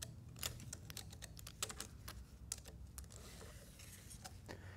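Faint, irregular metal clicks and clinks as a long splined shaft is slid out of a New Process 241 DLD transfer case's housing.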